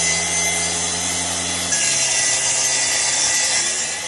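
Festool TS 55 REBQ plunge track saw running and cutting into solid parquet flooring, a steady motor whine over the hiss of the blade in the wood; its tone shifts lower about two seconds in.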